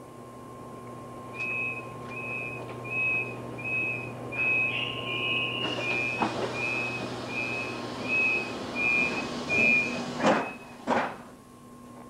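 ICE 1 high-speed train's door warning signal: a high beep repeating evenly, about one and a half times a second, for around nine seconds, with a brief higher whistle tone about five seconds in. Two sharp knocks near the end, with a steady hum from the train underneath.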